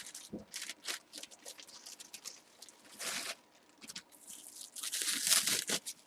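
Wrapping being torn and crinkled off a heavily wrapped item: a run of short crackling rips, busiest and loudest near the end.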